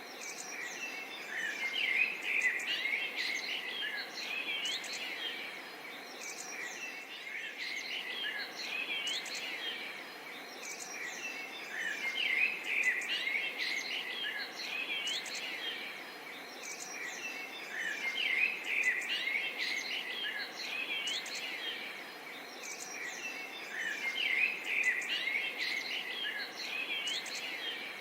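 Forest soundscape of several birds chirping and calling, short rising and falling notes, over a steady background hiss of insects; the bird chorus swells and eases every several seconds.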